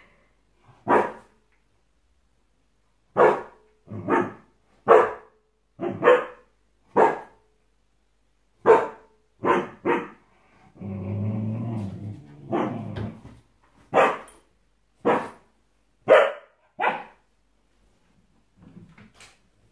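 Samoyed puppy barking at its own reflection in a mirror: about fifteen short, sharp barks, one at a time, with a longer low growl about eleven seconds in. The barking stops a few seconds before the end.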